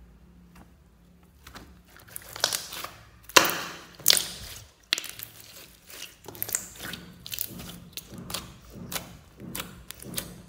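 Clear sequin-filled slime being squeezed and kneaded by hand, trapped air popping and crackling in a run of sharp pops. The loudest pops come a few seconds in, then they go on at about one or two a second.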